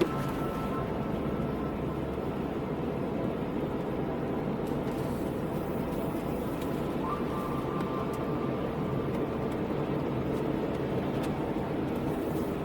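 Steady road noise of a car being driven on a wet road in rain, with a faint steady whine.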